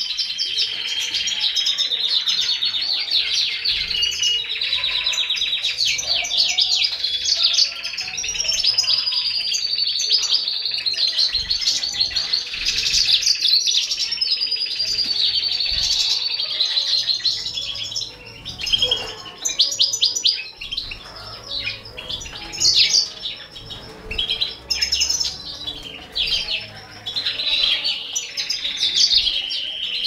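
High, rapid chirping of small cage birds, a European goldfinch and canary nestlings. It is dense and almost unbroken for a little over half the time, then comes in short separate bursts.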